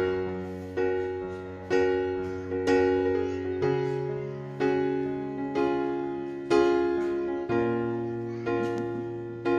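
Background piano music: slow chords struck about once a second, each ringing and fading before the next, over a bass note that changes every few seconds.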